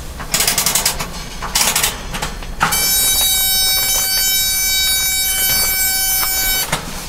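Kerosene heater being lit: rapid ratcheting clicks, then a steady pitched buzz for about four seconds that starts and stops abruptly.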